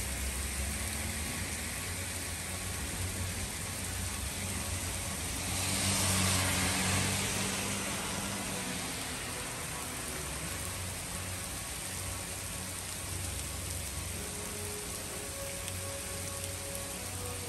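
Heavy rain falling steadily on a street. About six seconds in, a vehicle drives past on the flooded road, its tyres hissing through the water in a swell that rises and fades over two or three seconds.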